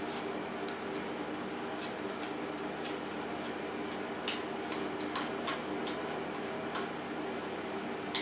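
Steady hum with scattered light clicks and taps at irregular intervals, the sharpest about halfway through and right at the end.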